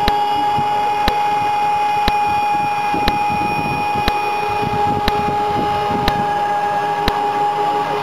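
AVG LP-60 electric band sawmill, with its 11 kW motor, running and sawing through a log: a steady whine at two pitches over the noise of the cut, with a sharp tick about once a second.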